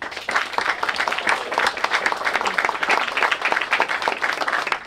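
Audience applauding: many hands clapping together, starting at once and easing off near the end.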